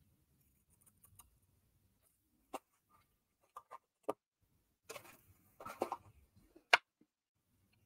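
Scissors snipping cardstock: a handful of short, scattered snips with light paper handling between them, the sharpest snip near the end.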